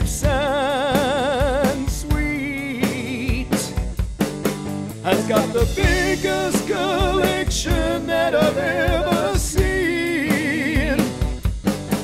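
A man singing, holding notes with a wide vibrato, over a rock-style backing track with drums.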